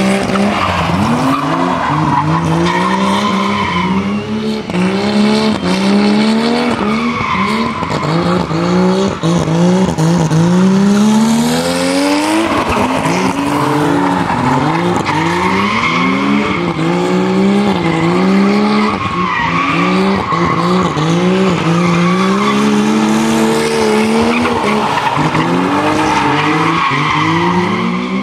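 A BMW and a Nissan Skyline drifting in tandem: their engines rev up and fall back again and again as the drivers work the throttle, over continuous tyre squeal from the sliding tyres.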